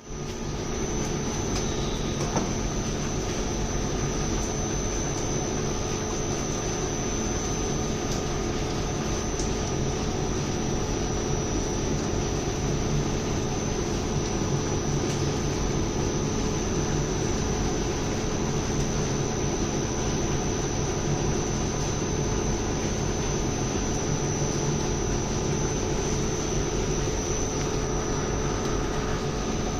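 Industrial machinery running steadily: a constant hum and rush with a thin high whine held throughout.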